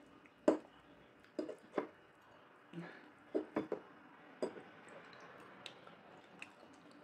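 Kitchen dishes and utensils being handled: about a dozen irregular light knocks and clinks.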